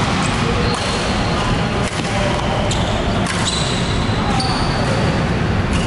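Badminton rally in a large sports hall: sharp racket hits on the shuttlecock mixed with high squeaks of court shoes on the floor, echoing in the hall.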